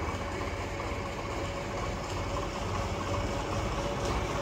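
Tractor diesel engine running steadily at low speed as the tractor creeps forward: a continuous low rumble with a faint steady whine above it.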